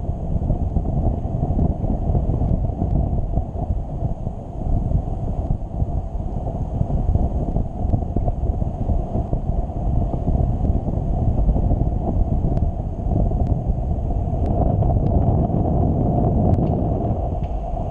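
Wind buffeting the microphone of a camera worn by a paraglider pilot in flight: a loud, steady low rumble.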